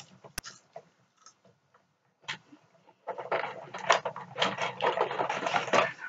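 Plastic crank and gears of a Fright Factory toy rattling as its knob is turned by hand, spinning the mold under the curing light. The rattle starts about three seconds in and lasts about three seconds, after a single sharp click near the start.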